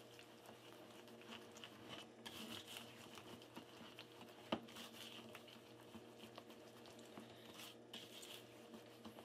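Faint whisking of a thick egg-yolk and sugar mixture with a wire whisk in a plastic bowl: soft, irregular scraping and small clicks, with one sharper tick about halfway through, over a low steady hum.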